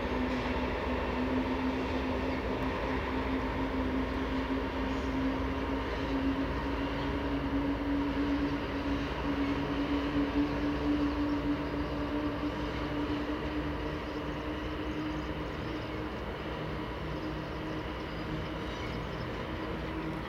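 Two Canadian Pacific diesel-electric locomotives pulling a grain train away from a stop, their engines working with a steady low drone. One strong tone in the drone slowly rises in pitch as the train gathers speed.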